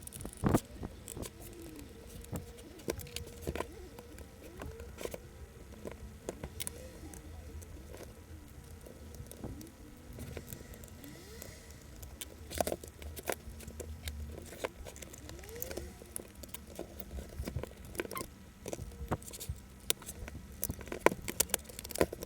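An old laptop being taken apart by hand: scattered clicks and knocks of its plastic casing and small parts, with short squeaks in between.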